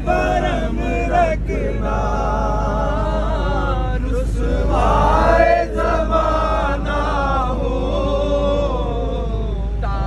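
Male chanting in a slow, solemn melody with long, wavering held notes.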